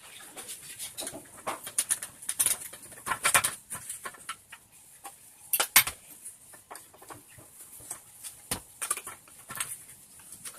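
Irregular sharp clicks and clinks of small hard objects being handled, with a quick run of them about three seconds in and a single sharp one near six seconds.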